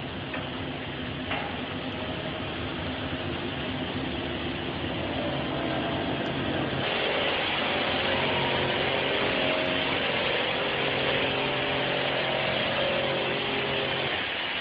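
Factory machinery running: a steady motor hum under a continuous mechanical noise, which turns brighter and a little louder about seven seconds in.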